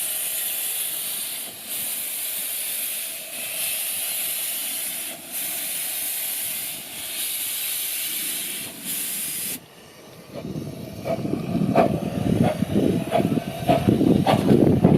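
Miniature steam locomotive hissing steam in repeated bursts about every second and a half. The hiss cuts off abruptly after about nine and a half seconds. About a second later, a louder clattering rumble with irregular knocks begins.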